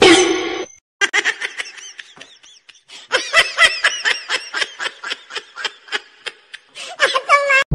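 A person laughing, a long run of short "ha" bursts at about three or four a second, growing louder partway through.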